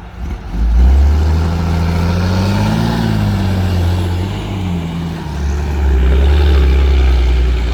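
Heavy diesel engine working hard close by: it revs up and back down over a few seconds, eases briefly, then runs loud at a steady pitch.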